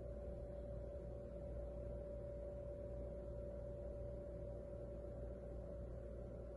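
Steady room hum: a low rumble with one constant mid-pitched tone over it, unchanging throughout.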